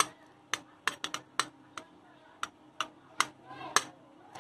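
A metal spoon tapping and scraping on a steel plate while spreading vegetable topping over a pizza base: about a dozen sharp, uneven clicks.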